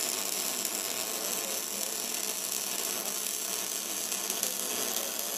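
MIG welder arc crackling steadily as the gun lays a bead on metal plate, throwing sparks.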